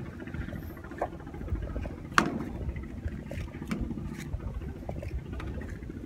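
Handheld camera microphone noise outdoors: a low steady rumble with scattered light clicks and taps, the sharpest click about two seconds in.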